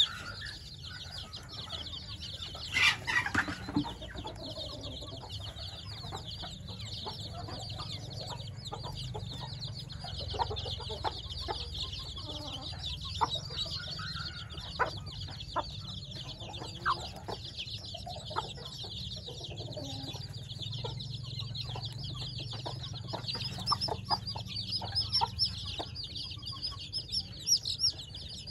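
A brood of week-old chicks peeping constantly, a dense chorus of short high cheeps. A single louder call falls in pitch about three seconds in, and short taps are scattered through it.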